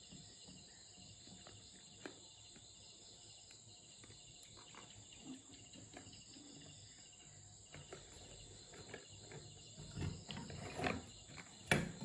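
Plastic bottle body and bottle-cap wheels of a homemade toy car tapping and clicking against a wooden bench as it is handled, the knocks growing louder and closer together near the end. A steady high chirring of insects runs underneath.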